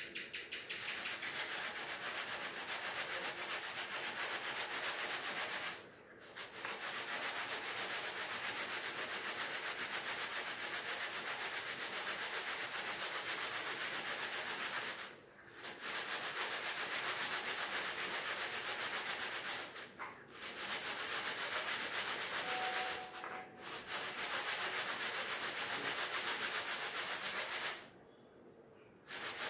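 Split moong dal being sifted by hand in a plastic sieve: a steady rustling hiss of dry grains shaking and sliding over the mesh, with four short pauses and a longer one near the end. This is the sifting stage after hand-quern grinding, separating the halved dal from the fine broken bits and powder that fall through.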